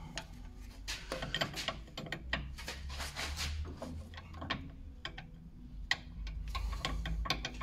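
Metal spanner clicking and clinking on a tight nut at a steering tie rod end as it is fitted and worked, a string of irregular light ticks.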